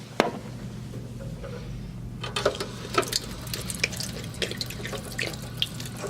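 Water running from a restroom sink tap, with scattered light clicks and knocks from about two seconds in.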